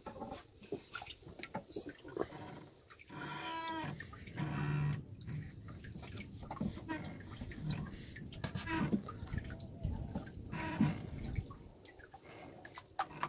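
Water sloshing and dripping in a wooden boat's fish well, with small irregular splashes.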